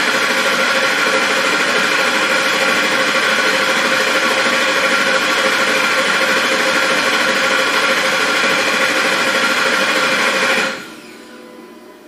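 Ford 5.4-litre three-valve V8 cranking steadily on the starter at about 195 rpm, accelerator held to the floor, for a relative compression test; it does not fire. The even cranking cadence suggests no serious mechanical problem. The cranking stops abruptly near the end.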